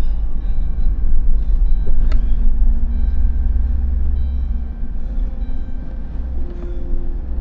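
Car driving, heard from inside the cabin: a loud, steady low rumble of engine and road noise, with one sharp knock about two seconds in.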